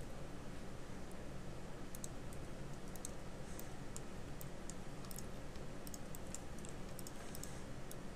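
Irregular light clicks of a computer mouse and keyboard being worked, over a steady low hum.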